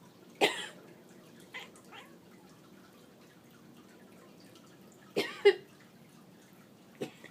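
A series of short coughs. There is a sharp cough about half a second in, two faint ones around two seconds, a loud double cough about five seconds in, and a short cough near the end.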